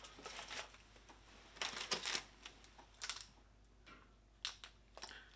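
Faint, scattered rustling and clicking of a crinkly plastic candy-bar wrapper being picked up and handled, the loudest rustle about two seconds in.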